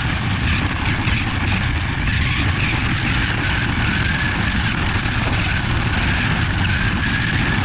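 Toy remote-control car's electric motor whining steadily, its pitch wavering slightly, over a continuous low rumble.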